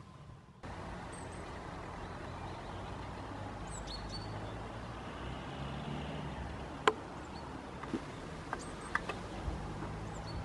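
Open-air ambience: a steady low rumble and hiss, with a few faint high bird chirps and several sharp clicks in the second half, the loudest about seven seconds in.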